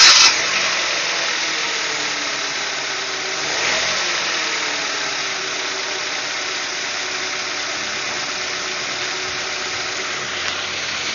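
Hyundai Elantra engine catching with a loud burst, then running at a steady idle that slowly settles, with a brief rise in speed about four seconds in. The car has a hard-starting problem.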